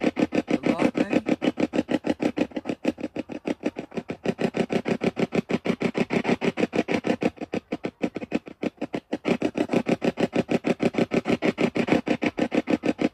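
Ghost-hunting spirit box scanning through radio stations: a fast, steady, even chopping of radio noise.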